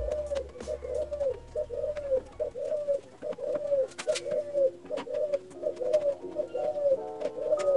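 A bird calling over and over, about two short rising-and-falling calls a second.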